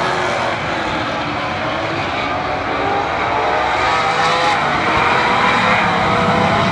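A pack of stock race cars running on a short oval, several engines sounding at once, their pitch climbing steadily.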